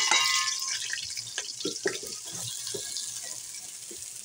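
Sliced onions hitting hot oil in an aluminium pot, a loud sizzle at first that dies down steadily, with light knocks of a wooden spoon stirring them.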